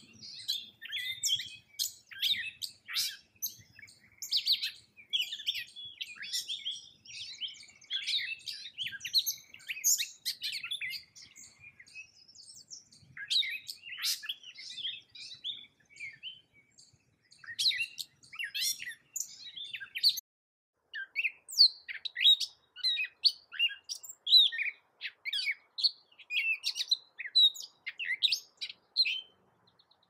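Gray catbird singing: a long run of short, varied, high-pitched notes, with a few brief pauses between phrases.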